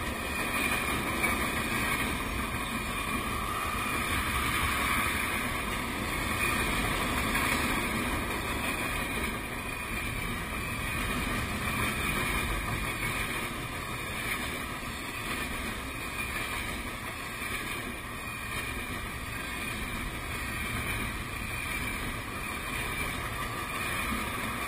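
Freight train cars rolling past close by: a steady rumble of steel wheels on the rails, with a continuous high ringing tone over it.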